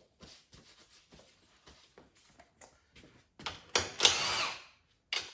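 Faint light clicks and ticks, then about three and a half seconds in a cordless power driver whirs for about a second, its pitch rising and then falling as the motor spins up and stops.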